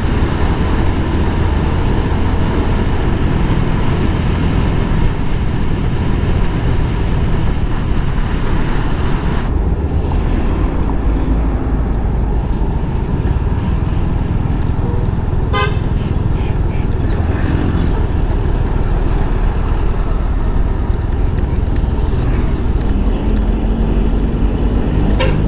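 Motorcycle riding at road speed: steady wind noise on the microphone over the running engine, with passing traffic. A vehicle horn beeps briefly a little past the middle, and the engine note rises near the end.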